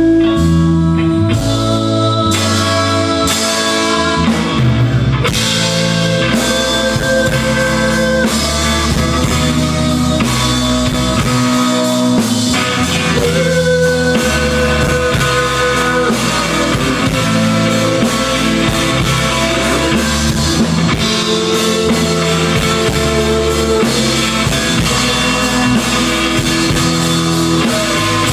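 Live rock band playing an instrumental break with no vocals: electric guitar over bass and drum kit, the cymbals and drums filling out about five seconds in.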